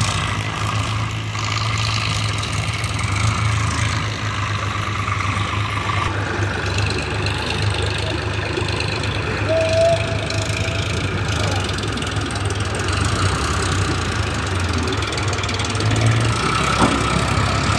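Eicher 557 tractor's diesel engine running steadily.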